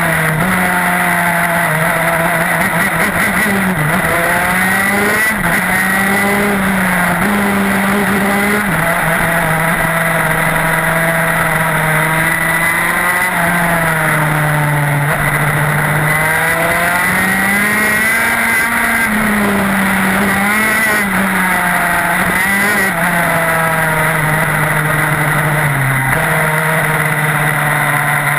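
TM K9B two-stroke shifter kart engine at racing speed, its pitch climbing and dropping again and again as the kart accelerates, shifts and brakes for corners.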